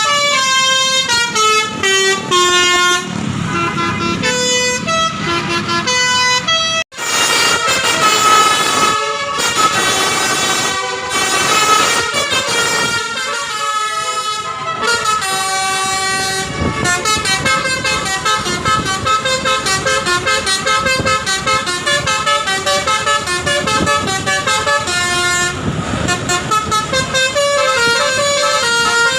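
Basuri telolet musical air horn on a tour bus playing quick multi-note melodies, note after note in fast runs, with a brief break about seven seconds in.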